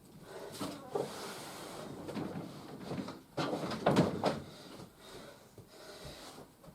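Large cardboard box being shifted and handled: scraping and rustling with a few knocks, loudest about four seconds in.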